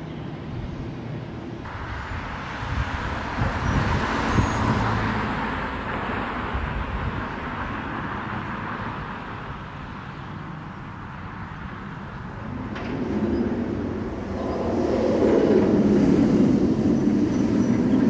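Bolliger & Mabillard hyper coaster train running along the steel track on a test run: a rushing roar of wheels on the rails that swells and then eases, followed near the end by a deeper rumble building as a train runs through the structure.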